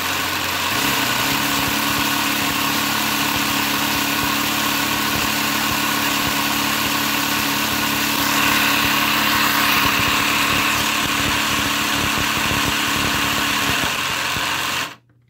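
LEGO engine model turned by a LEGO electric motor: the motor whirs steadily while the plastic pistons, crank and gears clatter in quick ticks. It stops suddenly near the end.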